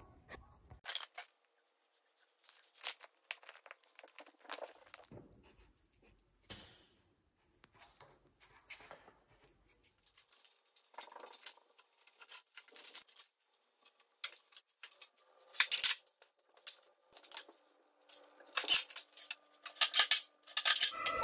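Woodworking shop sounds from handling lumber and tools: a string of short scrapes, knocks and rustles, louder and busier in the last few seconds, where a cordless drill driving a screw into a wooden batten is heard.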